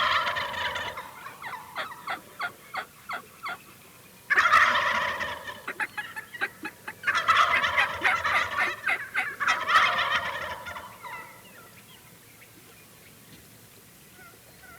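Merriam's wild turkey gobblers gobbling: about four loud rattling gobbles, some overlapping, with short sharp calls between the first two, then quiet for the last few seconds.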